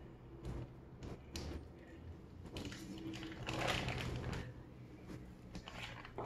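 Soft rustling and crinkling of a plastic bacon package handled with gloved hands as a raw bacon slice is peeled off, in scattered small clicks that are densest about three and a half seconds in.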